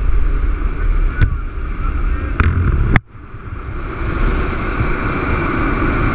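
Steady engine and propeller roar of a jump plane in flight, mixed with wind rushing through the open jump door. Two short knocks come a little over a second apart, and about three seconds in the roar drops away suddenly and swells back within about a second.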